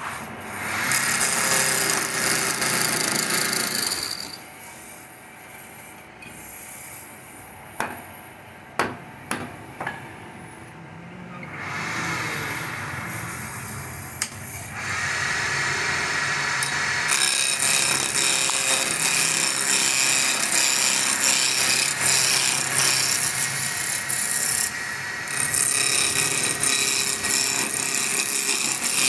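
Lathe turning tool cutting a spinning wooden chair-leg blank, roughing it from square to round: a loud steady scraping of the cut. A quieter spell about a third of the way in is broken by a few sharp knocks, and steady cutting returns for the second half.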